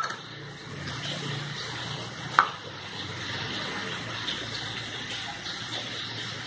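Steady hiss in the background, with one sharp metallic clink about two and a half seconds in: a steel ladle knocking against a stainless-steel pot.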